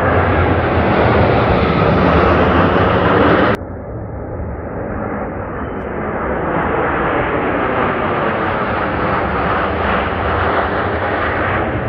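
Formations of military jet aircraft flying low overhead, their jet engine noise loud and steady. About three and a half seconds in, the sound drops abruptly. It then builds again as another formation of jets passes.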